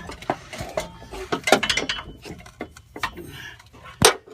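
Metal clinking, knocking and scraping as an aftermarket muffler is slid onto the exhaust pipe, with one sharp knock near the end.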